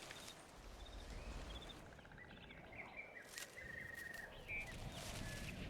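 Quiet outdoor nature ambience with birds chirping: short high chirps, a rapid trill in the middle, and a rattling chirp near the end.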